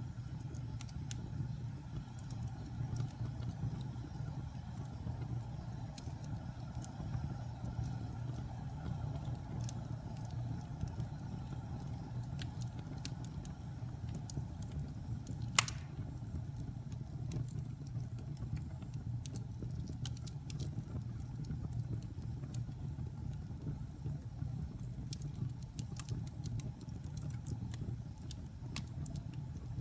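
Wood fire burning in a fireplace: a steady low rumble of flames with scattered small crackles, and one sharp, much louder pop about halfway through.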